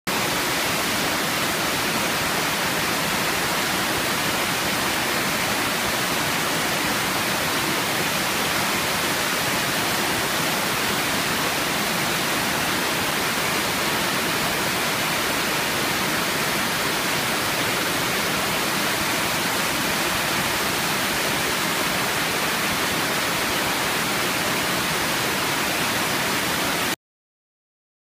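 Mitarashi Falls, a waterfall cascading over mossy boulders, rushing in a steady, even hiss of falling water that stops abruptly near the end.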